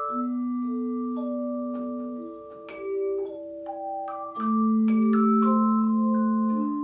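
Tone chimes played in harmony: struck notes with clean, pure tones ring on and overlap, a melody moving over longer held low notes.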